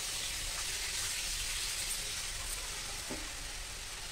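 Thin besan (gram-flour) batter poured from a steel plate into a hot iron kadhai of spiced onion gravy: a steady pouring, splashing hiss that eases slightly towards the end.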